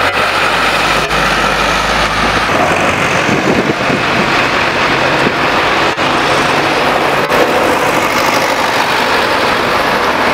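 Vintage fire engine and farm tractors driving past one after another on a wet road, their diesel engines running steadily, with tyre hiss from the wet surface.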